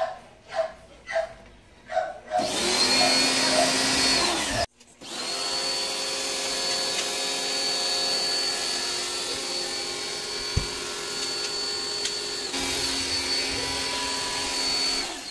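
Small electric pressure washer's motor starting up with a rising hum and running steadily with a high whine, as water is sprayed to clean aircon parts. It stops briefly a little before five seconds in and starts again. In the first two seconds, a dog barks in short evenly spaced yelps, about two a second.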